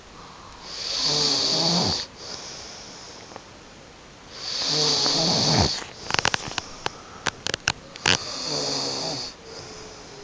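A sleeping woman snoring: three long snores about every four seconds, each a low buzz with a breathy hiss, the last one fainter. A cluster of sharp clicks comes between the second and third snores.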